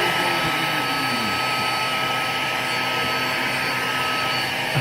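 Vacuum cleaner running steadily, a constant rushing noise with a thin steady whine, used to vacuum fleas off a cat.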